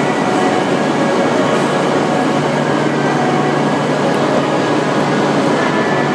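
Steady train noise on a Shinkansen station platform: an even, unchanging rumble and hiss with a faint low hum.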